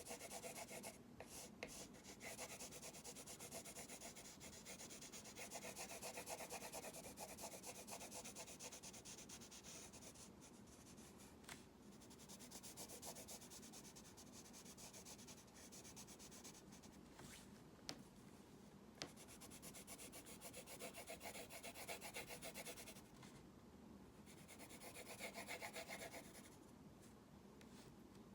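A drawing tool being stroked back and forth across a drawing surface in scratchy runs, as in sketching and shading. The runs break off for short pauses, with a few small taps.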